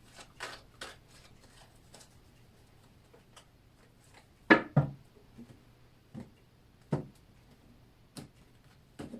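Tarot cards being handled, drawn and laid down on a table: a few scattered soft taps and rubs, the loudest pair about four and a half seconds in.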